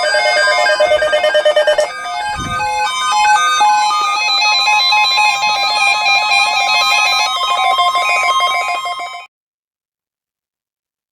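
Electronic music of rapid, repeating synth notes over a steady high tone, which cuts off abruptly about nine seconds in.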